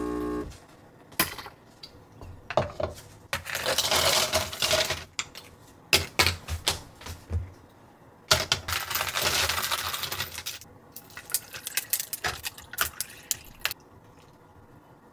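An espresso machine's pump hum cuts off about half a second in. Then ice cubes drop and clatter into a plastic tumbler in irregular runs of clinks, with two longer spells of rattling.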